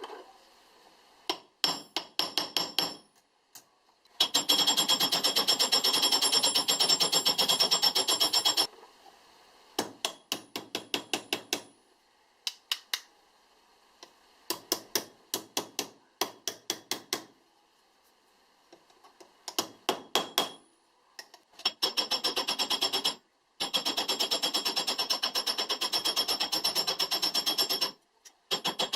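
Small hammer tapping rapidly on metal in quick, even runs of strikes, with a bright ring on each blow and short pauses between runs.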